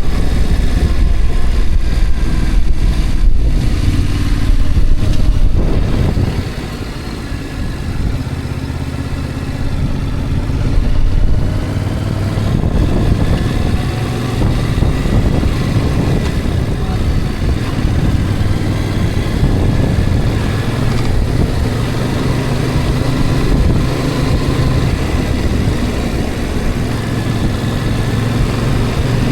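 A vehicle engine running while driving, with road and wind noise. It drops a little about six seconds in, then runs on steadily.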